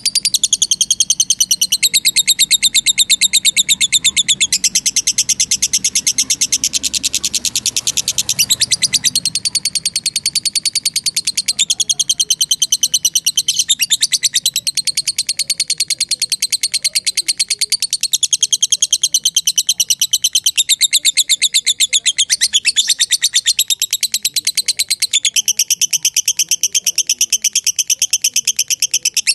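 Lovebird's long 'ngekek' chatter: a loud, rapid, nearly unbroken string of sharp, high chirping notes that shifts in pitch a few times.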